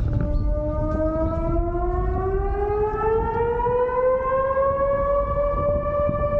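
Civil defence siren sounding a public warning-system test: it starts up, rises in pitch over about five seconds, then holds a steady wail. A low rumble runs underneath.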